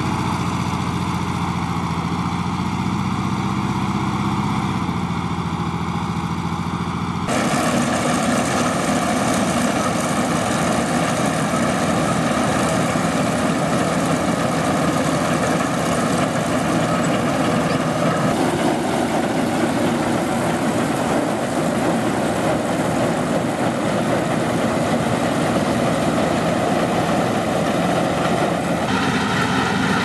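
Claas Columbus combine harvester running in the field, its engine a steady drone at first; about seven seconds in the sound changes abruptly to a louder, denser clatter of engine and threshing machinery as the combine cuts the crop.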